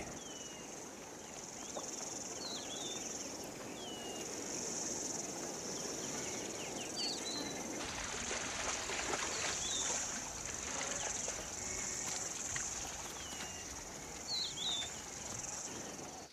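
Steady high-pitched insect chorus, with short bird chirps scattered through it.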